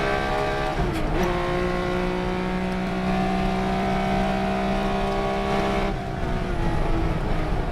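Race car engine running at high, steady revs. About a second in there is a brief dip and drop in pitch like a gear change. At about six seconds the note falls and turns unsteady, as when the driver lifts off.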